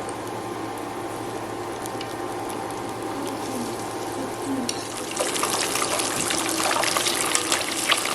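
Battered mini corn dogs deep-frying in hot oil: a steady sizzle that turns, about five seconds in, into a louder, dense crackle and spatter.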